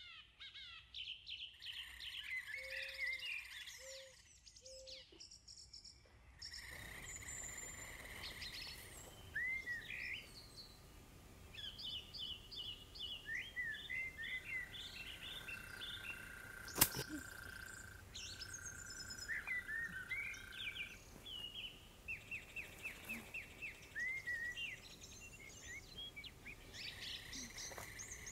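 Several birds chirping and trilling, with rapid runs of short notes. A single sharp click stands out about halfway through.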